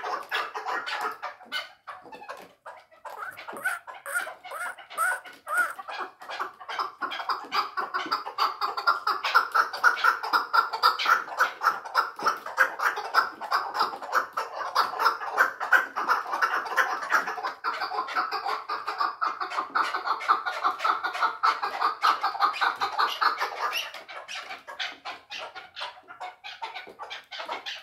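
Caged chukar partridge calling: a long run of rapid clucking chuck notes, building up and at its loudest through the middle, then easing off near the end.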